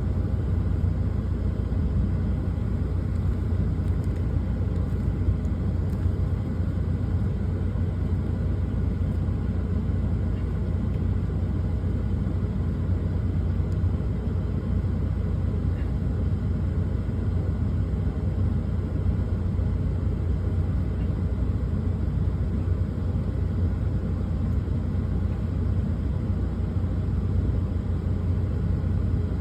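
Steady low engine rumble inside a truck's cab, unchanging throughout.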